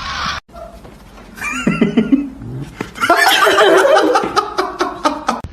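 A cat calling repeatedly, with a person laughing over it; the calls grow louder and denser from about three seconds in.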